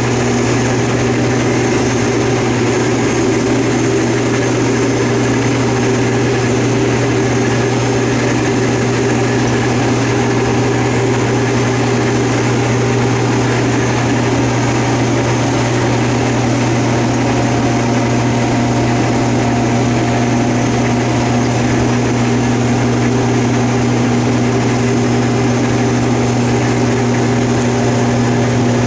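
Case IH combine harvester running steadily while harvesting wheat: a loud, continuous engine drone with a strong low hum. A second, higher tone grows stronger about two-thirds of the way in.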